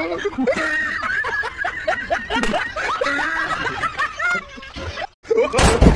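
Laughter: a person snickering and chuckling in quick repeated bursts. It breaks off about five seconds in, followed by a short loud rush of noise near the end.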